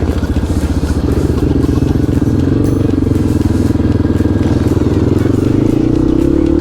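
Single-cylinder dual-sport motorcycle engine running under way at a steady pace, its pitch rising a little near the end.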